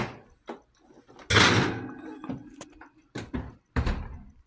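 A sharp click, then about a second in a loud clatter lasting about a second and trailing off, followed by a few short knocks near the end, like a door or other household object being handled.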